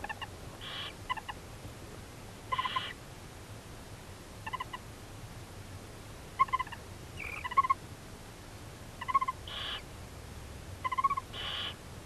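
Barn owls calling at the nest: about eight short clusters of chirping twitters, spaced a second or two apart, with four short breathy bursts among them.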